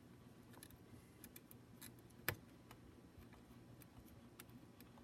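Faint, scattered small clicks and ticks of tiny screws being handled and driven back into a laptop's screen assembly, with one sharper click a little past two seconds in.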